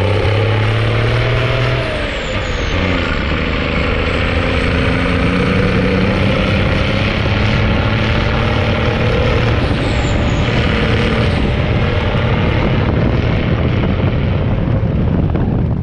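M35 'deuce and a half' army truck's engine running under load as the truck drives. Its pitch climbs, drops at a gear change about two seconds in, climbs slowly again and falls back again around ten seconds in.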